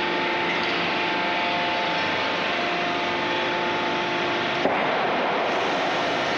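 Steady machinery drone in a forging shop, an even noise with several steady hum tones running through it, with no hammer blows. A single sharp click comes about four and a half seconds in.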